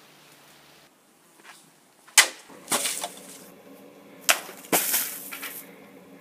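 Katana, a Cheness Oniyuri, cutting through hanging plastic water jugs: two sharp cracks of the blade striking, about two seconds apart, each followed by a splash of spilling water.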